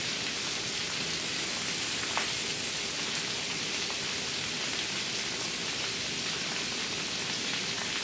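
A steady, even hiss of noise, with a faint click about two seconds in.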